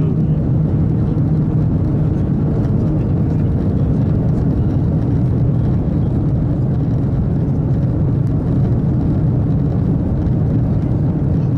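Steady low rumble inside a Japanese maglev train's passenger cabin at high speed, with a constant hum under it and no change in level.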